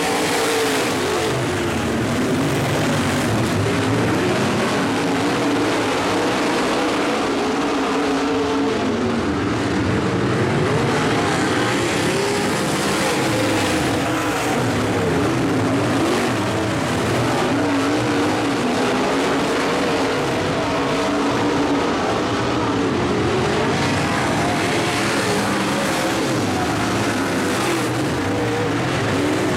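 Dirt-track Modified race cars' V8 engines running hard around the oval, several at once, their pitch rising and falling continuously as cars pass and lift and accelerate through the turns.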